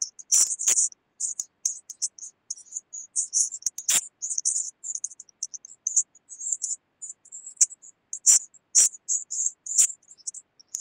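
Rapid high-pitched chirping in quick irregular bursts, with several sharp clicks among it.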